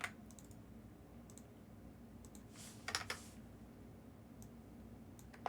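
Faint, scattered computer keyboard clicks, with a louder short cluster about three seconds in and a single sharp click near the end.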